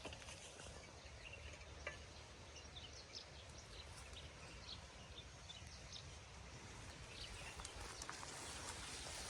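Faint outdoor nature ambience: scattered short, high chirps over a steady low rumble.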